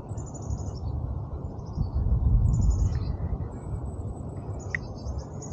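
Wild birds chirping in short, high calls several times, over a steady low rushing noise that swells about two seconds in.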